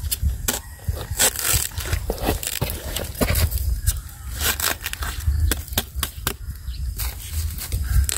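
Dry bamboo leaf litter and shoot sheaths crackling and crunching as they are disturbed, in irregular sharp clicks over a low rumble.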